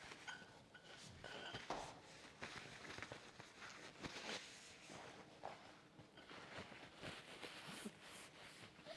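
Near silence in a room: faint scattered clicks and rustles, with two brief faint tones in the first two seconds.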